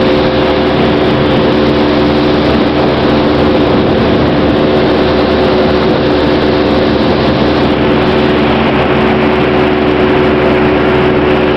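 Motorboat's engine running at a steady cruise, a constant drone with a rush of wind and water over it.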